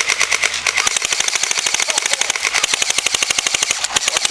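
Battery-powered electric airsoft gun firing full-auto: a rapid, even stream of sharp shots, with a brief break near the end.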